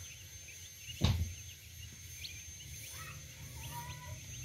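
Domestic chicks peeping: many short, high cheeps scattered throughout. A single sharp thump about a second in is the loudest sound.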